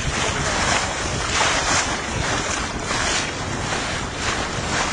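Wind buffeting the microphone over water rushing and splashing along the hull of a Contessa 26 sailboat under sail: a steady rush with repeated surges.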